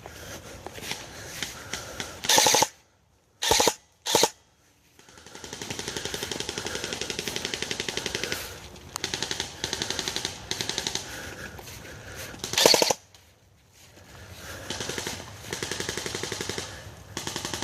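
Automatic airsoft rifles firing long full-auto bursts, a rapid even clatter of shots. A few short, much louder bursts of noise break in.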